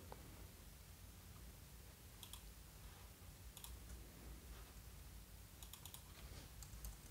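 Near silence: room tone with a handful of faint, scattered computer clicks.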